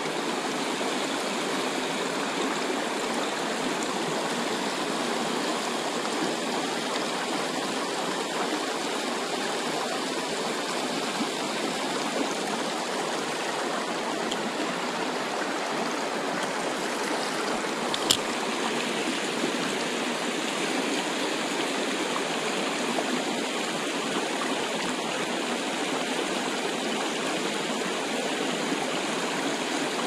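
Shallow river running fast over stones, a steady rushing of water. One sharp click partway through.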